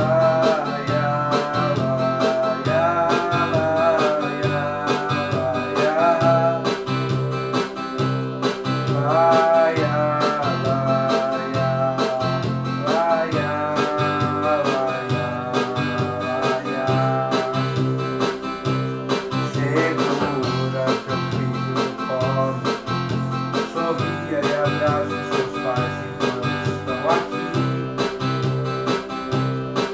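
Electronic keyboard playing a melody over steady low bass notes about twice a second.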